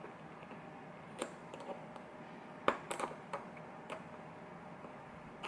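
A few sharp small clicks and taps of a tool working at the retaining spring clip on the back of a lock cylinder, the loudest in a quick cluster around the middle.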